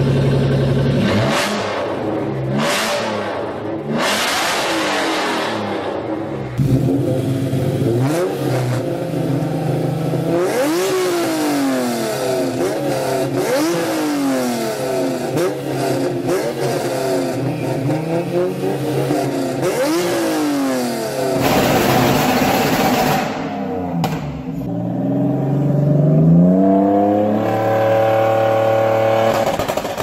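A sports car engine idling, then revved in a run of quick blips, each rising and falling in pitch about every one and a half seconds. Bursts of rushing noise come in near the start and again about two-thirds through, and near the end the engine revs up and holds a higher steady note.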